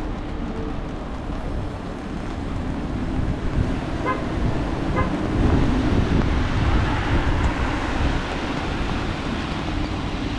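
City street traffic on wet pavement: engines rumbling and tyres hissing on the wet road, louder as a vehicle goes by about five to seven seconds in. Two short beeps sound about a second apart, around four and five seconds in.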